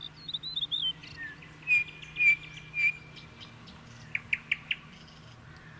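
Songbirds calling: a quick warbling phrase at the start, then three clear whistled notes about half a second apart, then three short sharp chirps in quick succession near the end.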